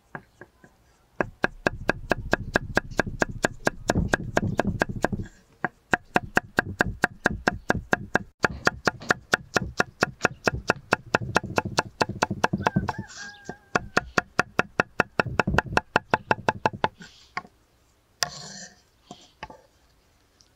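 Kitchen knife chopping fast on a wooden cutting board as a yellow bell pepper is diced, an even run of sharp knocks about five a second. The run starts about a second in and stops a few seconds before the end, followed by a few scattered knocks.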